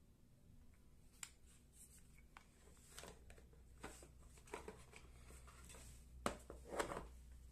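Faint handling of a hard plastic cordless drill and its blow-moulded carry case: scattered light clicks and knocks, with two louder knocks near the end. The drill's motor is not running.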